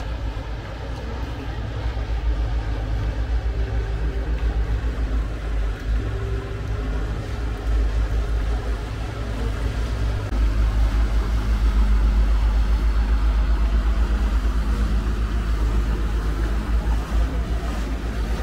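A boat engine on the canal running with a steady low rumble, louder from about ten seconds in.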